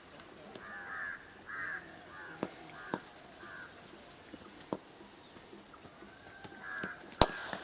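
A crow cawing: about five harsh caws in the first few seconds and one more near the end, with a few faint clicks between. A single sharp crack just before the end is the loudest sound.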